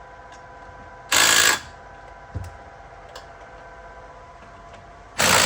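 Two short, loud bursts of a ratcheting hand or power tool running bolts in, about four seconds apart, with a faint knock between them over a steady hum.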